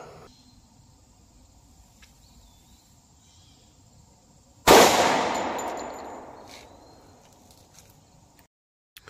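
A single .45 ACP pistol shot from a 3-inch-barrel Warthog, fired into clear ballistic gel about five seconds in: one sharp, loud crack whose sound fades away over about three seconds.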